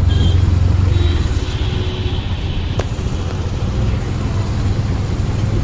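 Auto-rickshaw engine running, heard from inside the open cabin as it drives through traffic, with road and traffic noise around it. A single sharp click comes near the middle.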